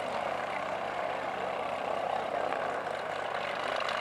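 Single-engine floatplane's engine and propeller running steadily as it taxis on the water.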